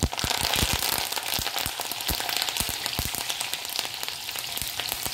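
Fresh curry leaves hit hot oil in a kadai of tempering spices and sizzle and splutter all at once, with mustard seeds popping. Many sharp pops crackle through a steady hiss, thickest in the first second.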